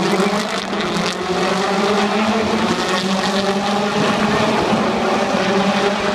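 A racing engine running at a steady pitch, loud and continuous.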